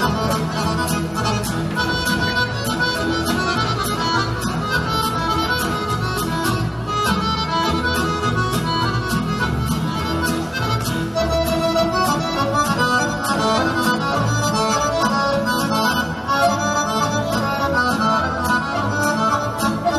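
Fast instrumental Serbian folk dance music for a kolo, a quick running melody over a steady beat marked by sharp regular taps.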